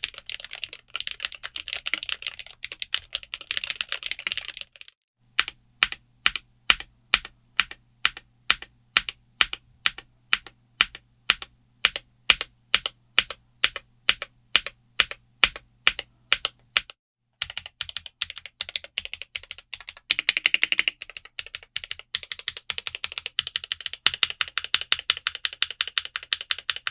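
MelGeek Made68 Pro keyboard with Gateron Magnetic White magnetic switches being typed on: fast typing, then a short pause and single keystrokes at an even pace of about two a second for some twelve seconds, then fast typing again.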